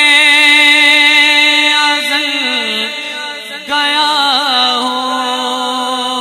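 A man's voice reciting an Urdu naat through a microphone, holding long ornamented sung notes that waver and glide. There is a brief break about three and a half seconds in, then a new phrase.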